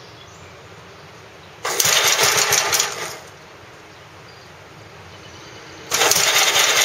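Gravely L-series tractor's 7.6 hp engine cranked twice by its electric starter, each try lasting about a second and a half and stopping without the engine catching.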